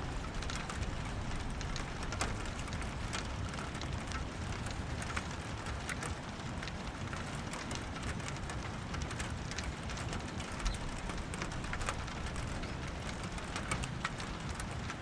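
Steady rain falling during a thunderstorm, with many separate drops tapping sharply on a surface close by.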